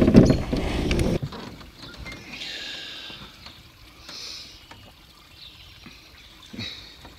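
Water splashing and sloshing as a netted largemouth bass comes over the side of an aluminium boat. This gives way about a second in to a quiet stretch with soft trickling and dripping.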